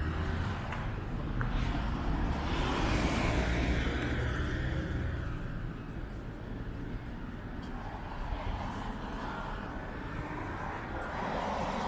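City street traffic: a vehicle's engine and tyre noise swelling as it passes close by and then easing after about five seconds, over a steady low rumble of traffic.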